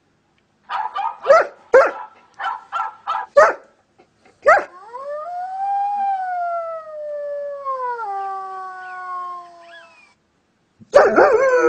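A dog giving a quick run of short yips, then a bark that draws out into a long howl, rising and then slowly falling in pitch. Another loud howl starts near the end.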